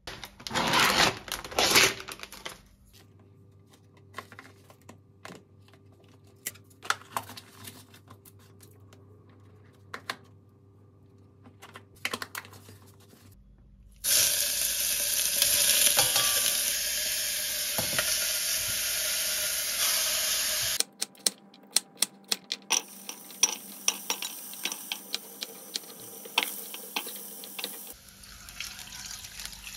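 Chunks of meat sizzling in a stainless-steel saucepan on an electric hob, turned with tongs that click and scrape against the pot. The sizzling starts suddenly about halfway through, runs steadily for several seconds, then drops to a softer hiss under a run of sharp clicks. Earlier there are short bursts of noise and a few scattered clicks.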